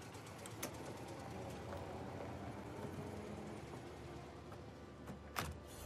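Faint steady street ambience with a light click about half a second in, then near the end one sharp knock as the door of a vintage car is shut.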